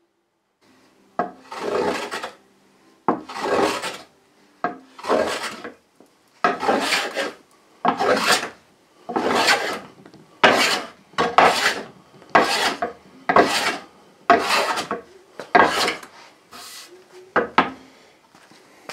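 Metal bench plane taking shavings off a wooden board in repeated push strokes: about fifteen strokes, a little over one a second, the last few shorter.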